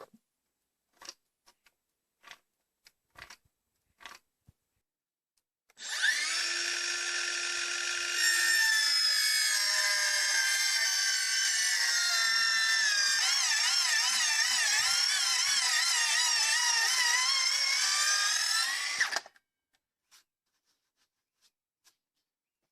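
Electric power tool working wood, its motor whine starting about six seconds in and running for about thirteen seconds. It gets louder about two seconds after it starts, wavers in pitch as the load changes and cuts off suddenly. Light clicks and knocks come before it.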